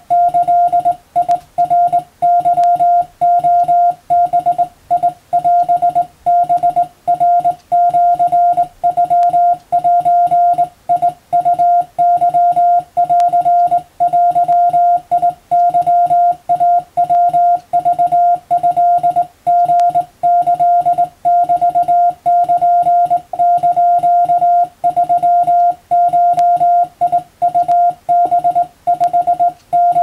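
Hand-sent Morse code (CW) from a straight key: a single steady mid-pitched sidetone switching on and off in rapid dots and dashes, keying Japanese wabun code at an even working pace with only brief gaps between characters.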